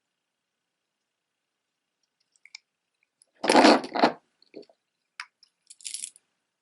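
Costume jewelry being handled: a few light clicks, then a short loud crunchy rustle-and-clatter lasting about a second, followed by more small clicks and a brief crackle near the end.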